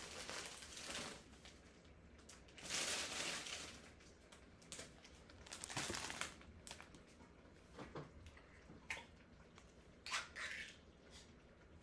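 Plastic bag of spinach rustling and crinkling in a few short bursts as the leaves are tipped out, followed by several light clicks and knocks of cookware.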